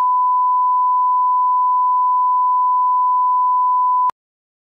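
Broadcast line-up tone played with SMPTE colour bars at the head of a programme tape: one steady, pure tone at a fixed pitch and level, a reference for setting audio levels, that cuts off suddenly about four seconds in.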